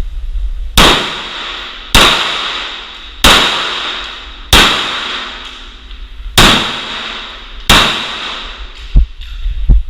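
Glock 19 9mm pistol fired six times at a slow, even pace, roughly one shot every second and a half, each bang followed by a ringing echo that fades over about a second. Two lighter knocks come near the end.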